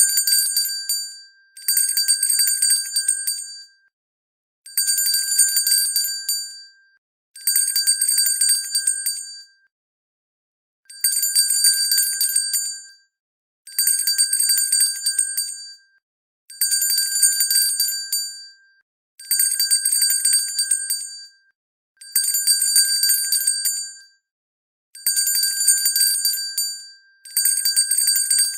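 Hand bell shaken in repeated bursts: about eleven rings of roughly two seconds each, one every two and a half seconds or so. In each ring the clapper strikes rapidly, over a high, steady ringing that fades at the end of the burst.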